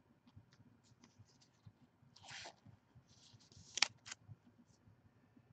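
A trading card being handled and slid into a plastic holder: a soft rustle a little over two seconds in, then a few sharp plastic clicks about four seconds in.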